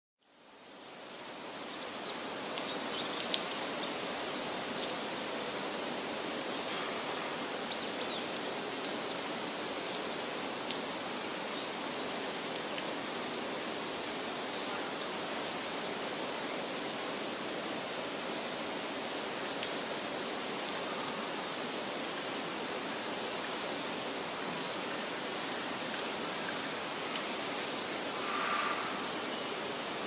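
Steady outdoor background hiss that fades in over the first two seconds, with faint high bird chirps scattered through it and a few small ticks.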